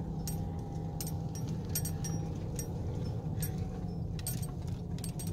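Inside the cab of a vehicle driving slowly on a rough road: a steady low engine and road hum, with scattered light clicks and jingling rattles.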